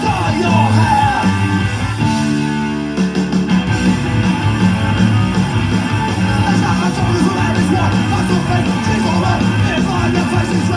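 Punk rock song playing, with guitar and singing; about two seconds in the band holds a chord for about a second before the beat comes back in.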